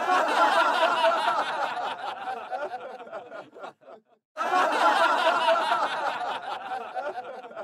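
Many voices laughing and chattering at once, with no single voice standing out. The sound cuts in abruptly, stops dead for about half a second around four seconds in, then resumes.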